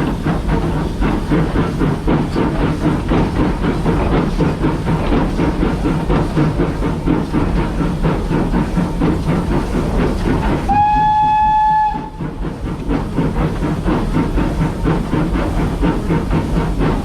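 Steam locomotive on the move: a continuous rhythmic clattering and rumble from the engine and wheels. About eleven seconds in it gives a single steady whistle blast of about a second.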